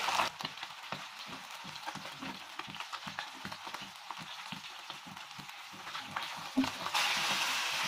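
Tilapia steaks shallow-frying in hot mustard oil, a steady crackling sizzle of many small irregular pops. The sizzle grows louder and denser about seven seconds in.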